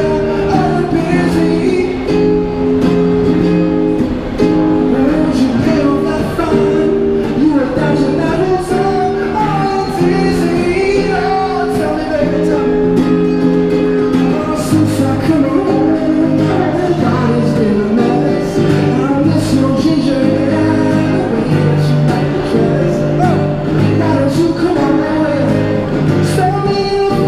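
A man singing a song while strumming a Yamaha acoustic guitar, both amplified through a Roland Cube Street EX battery amp. About halfway through, a lower part fills in beneath the chords.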